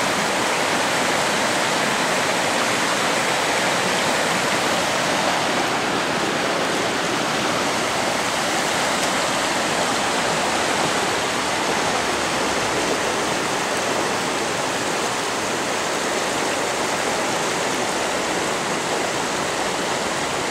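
Steady rush of the Agogna torrent in flood, its swollen water running fast over the bank and through rapids.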